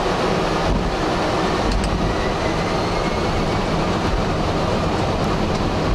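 Boeing 757 jet engines spooling up toward take-off thrust as the thrust levers are advanced, heard inside the flight deck as a loud, steady rush of noise with a faint whine.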